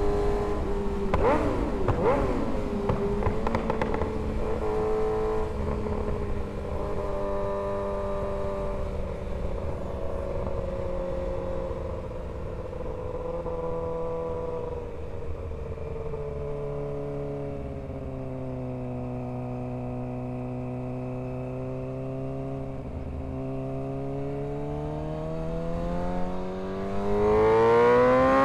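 Kawasaki ZX-6R 636 inline-four engine heard from the bike while riding: the engine note slowly falls for most of the time as the bike eases off, then rises steadily and gets louder over the last few seconds as it accelerates.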